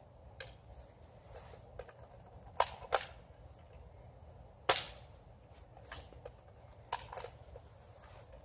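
Nerf dart blaster firing: a handful of sharp snapping shots, two in quick succession about two and a half seconds in, another nearly two seconds later and one more near the end.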